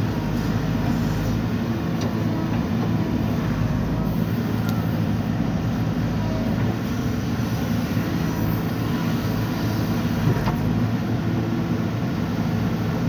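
JCB backhoe loader's diesel engine running steadily, with a few faint clicks.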